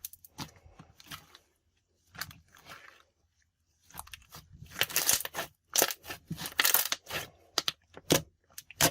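Hand-worked slime being stretched and squished, giving irregular sticky crackles, pops and squelches, busiest in the second half.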